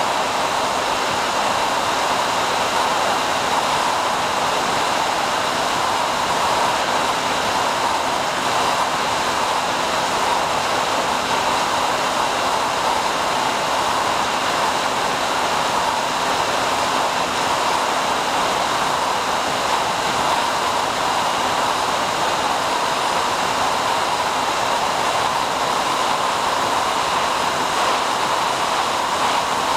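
Steady rushing noise with a faint constant hum, from a SkyHunter FPV plane's electric motor, propeller and airflow heard on board while it cruises at a steady throttle.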